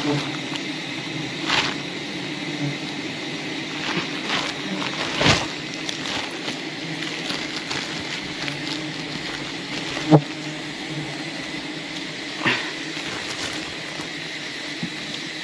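Swarm of wild bees buzzing steadily around the hive, with a few sharp knocks scattered through, the loudest about ten seconds in.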